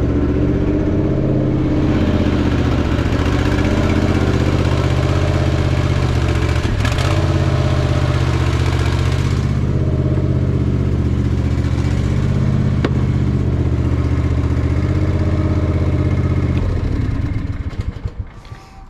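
Small vehicle engine running steadily, then shut off near the end.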